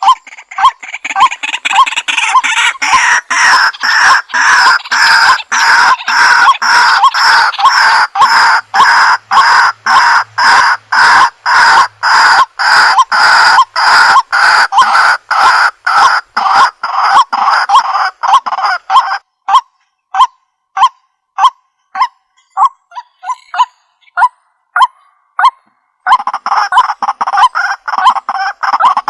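White-breasted waterhen calling: a long run of loud, rapidly repeated 'kwak' notes, about two a second, that thins to single, spaced notes for several seconds past the middle, then resumes densely near the end.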